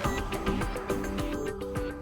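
Background music with sustained notes that shift in pitch.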